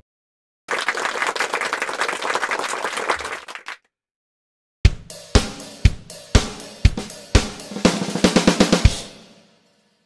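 Drum sound effects: a snare drum roll for about three seconds, then after a short pause a run of separate drum hits that quicken toward the end before fading out.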